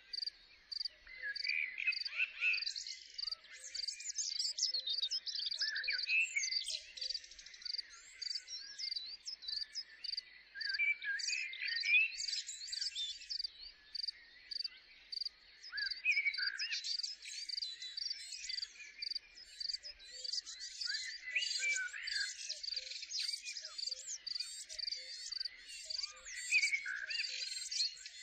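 Chorus of small birds singing in short, varied chirps and trills, over an evenly repeated high insect chirp.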